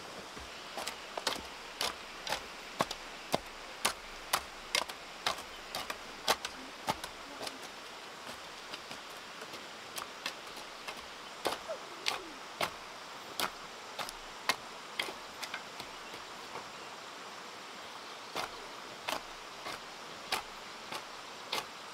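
Garden hoes chopping into loose soil: a run of sharp, short strikes, roughly two a second and irregular, thinning out for a while in the middle.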